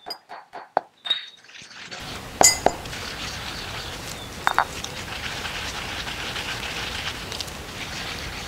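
Stone pestle pounding roasted dry spices to powder in a granite mortar for Massaman curry paste: a run of sharp knocks about four a second, then a few scattered strikes over a steady hiss.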